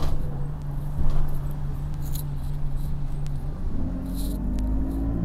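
Bus engine running low and steady, then rising in pitch about three and a half seconds in as the bus pulls away, with faint clicks and rattles over it.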